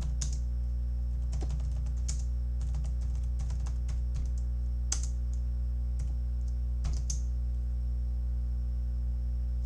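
Scattered computer keyboard clicks, sparse and irregular, with a few sharper ones, over a steady low electrical hum.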